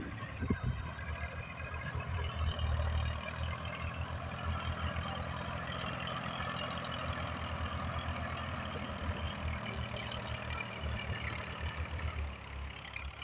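Massey Ferguson 240 tractor's three-cylinder diesel engine running steadily under load while its front blade pushes soil.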